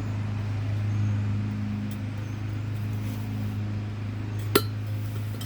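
A rubber snap-in valve stem, pulled through a lawnmower wheel rim with a valve stem puller tool, pops into place once near the end: one sharp pop, the sign that the stem is seated. A steady low hum runs underneath.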